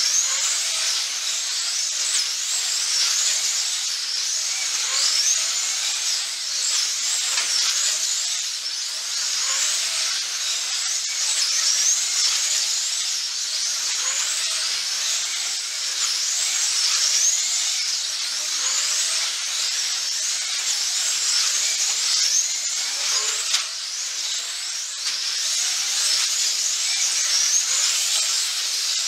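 Several 1/24-scale GTP slot cars racing, their small electric motors whining high and overlapping, each pitch rising and falling as the cars accelerate down the straights and brake into the corners.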